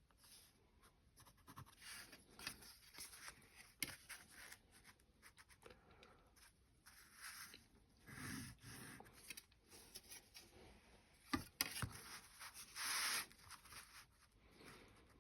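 Drawing on paper: short scratchy strokes of a drawing tool, with two sharp taps a little past eleven seconds in and a longer, louder stroke about a second later.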